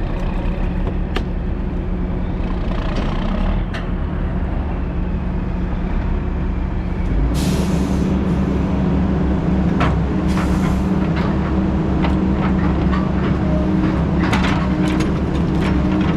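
Heavy diesel engine running steadily, its note rising and getting louder about seven seconds in, with two short hissing releases of air soon after and light rattles and clicks.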